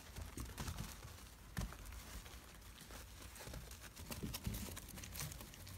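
Soft crinkling and scattered light clicks from young puppies shuffling about on plastic-backed puppy pads while one mouths a dead day-old chick.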